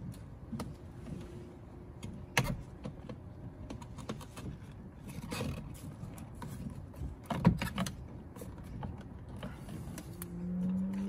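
Plastic and metal clicks and knocks as a car door mirror is wiggled and pushed into its mounting in the door, with three sharper knocks spaced a few seconds apart.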